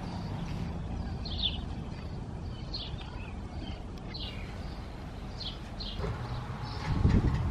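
Wind rumbling on the microphone, with a small bird giving short, high chirps every second or so. About seven seconds in, the low rumble swells louder.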